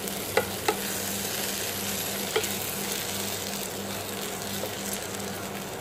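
Spatula stirring freshly cooked vermicelli in a pressure cooker pan on the stove, over a steady hiss from the hot pan. A few sharp clicks of the spatula against the pan in the first couple of seconds, with a low hum underneath.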